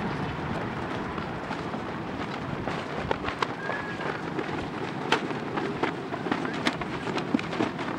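A column of Marines marching on asphalt: a steady shuffle of many boots over street noise, with sharp, irregular clicks and taps that grow denser after about three seconds.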